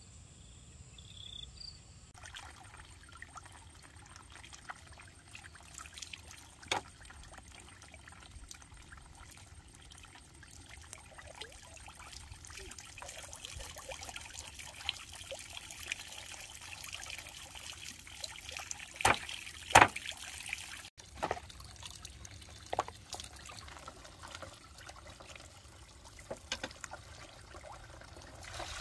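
Water trickling and pouring steadily, with scattered sharp knocks, the loudest two close together about two-thirds of the way through.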